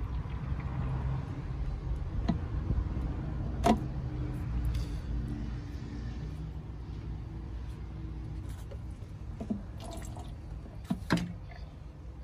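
Engine coolant trickling from a disconnected expansion-tank hose into a plastic drink bottle, over a steady low background rumble. Two sharp clicks stand out, about a third of the way in and near the end.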